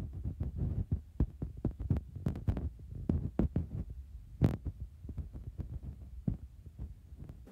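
Irregular low thuds and knocks in quick succession, with one sharper knock about four and a half seconds in.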